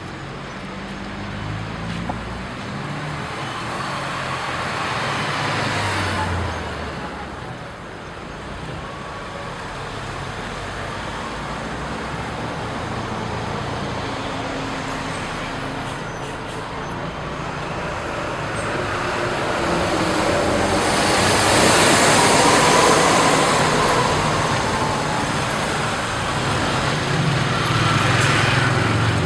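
Street traffic passing: cars, a bus and motorcycles going by one after another. The tyre and engine noise swells and fades as each passes, loudest about two-thirds of the way through, with a low engine hum from the bus and motorbikes near the end.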